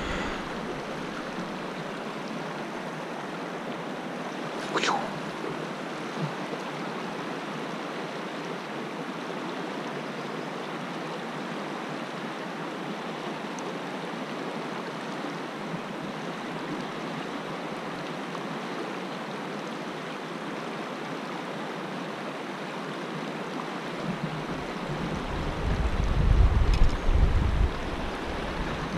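Fast-flowing mountain river rushing steadily over rocks, an even water noise. A brief sharp sound about five seconds in, and a low rumble on the microphone near the end.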